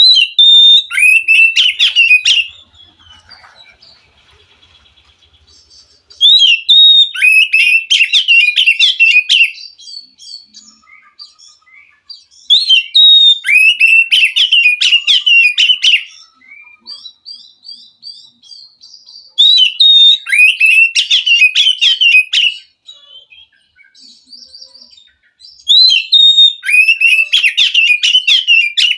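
Wild Oriental magpie-robin (kacer) singing in five loud phrases a few seconds long, about every six seconds. Each phrase opens on a high held note and breaks into a fast run of chattering, whistled notes. Faint softer notes come between the phrases.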